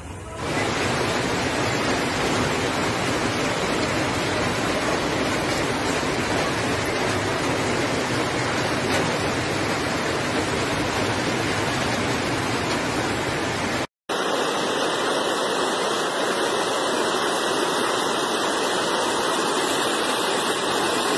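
Floodwater rushing through a street: a steady, even noise of fast-moving water. About fourteen seconds in it cuts off for a moment and comes back with a slightly different tone.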